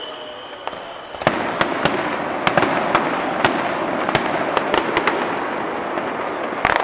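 Aerial fireworks bursting: a falling whistle fades out in the first second, then a rapid run of sharp cracks and bangs over a dense crackle begins about a second in.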